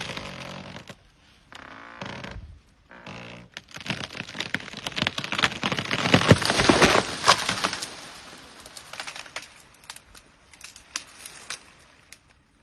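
An elephant breaking a tree: wood cracking and leafy branches thrashing, with many sharp snaps, loudest in the middle and fading toward the end.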